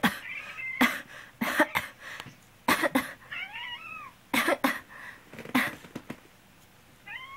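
A person coughs in several short fits while a house cat meows in reply between the coughs: a short meow right after the first cough, a longer one about three and a half seconds in, and another starting near the end. The coughs are the loudest sounds.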